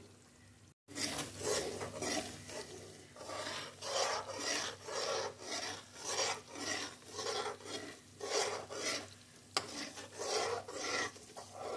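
A slotted steel spatula scraping and stirring semolina as it roasts in hot ghee in an aluminium kadhai. The strokes are regular, about two a second, and start about a second in.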